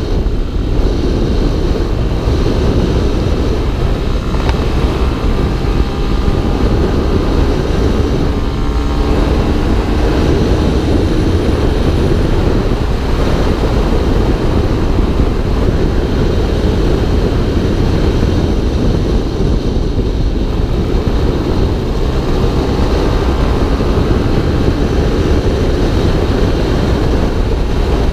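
Motorcycle riding at road speed: wind buffeting the helmet-mounted camera's microphone, with the bike's engine faintly heard under the wind noise. The engine note is a little clearer around nine to eleven seconds in.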